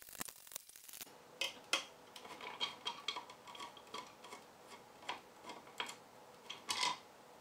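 Irregular light clicks, taps and scrapes of hard 3D-printed plastic parts being handled as the blaster's front plate is worked loose and lifted off, with a few louder knocks.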